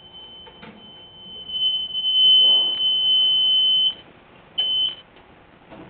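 A single high, steady alarm tone from the home fire alarm system. It swells from faint to loud about a second and a half in, holds for about two seconds, cuts off sharply, then sounds once more as a short beep. This comes as the system is being reset. A few faint handling clicks are heard around it.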